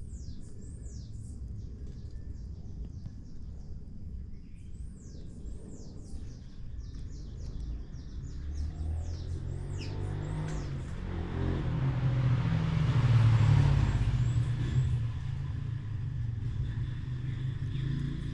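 Birds chirping, with repeated quick downward-sweeping high notes, over a steady low rumble. A vehicle passes, swelling to its loudest about two-thirds of the way in and then fading away.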